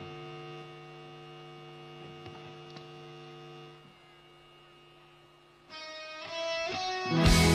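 Live rock band starting a song: a held chord rings and fades, a few new notes come in at about six seconds, and near the end the full band comes in loudly with drums.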